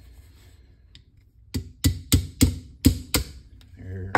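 Small brass-faced hammer tapping the mainspring housing pin into a 1911 pistol's steel frame: about six quick, light taps starting about a second and a half in.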